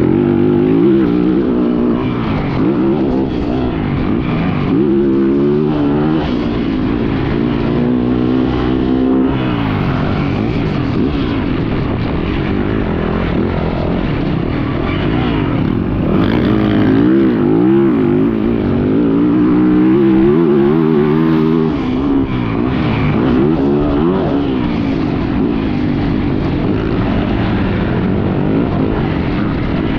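Yamaha YZ450F motocross bike's four-stroke engine under hard riding, its pitch rising and falling over and over as the throttle opens and closes and it shifts through the gears.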